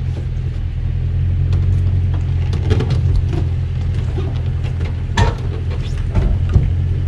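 Pickup truck engine idling with a steady low hum as it backs a boat trailer down the launch ramp, with a few short knocks and clanks from the trailer and boat, the loudest about five seconds in.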